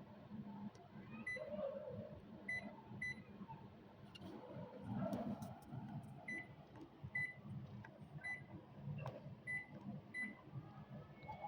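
Short, high electronic beeps, about eight of them at irregular intervals, from a Hitachi split air conditioner's indoor unit acknowledging remote-control commands, over a faint low hum.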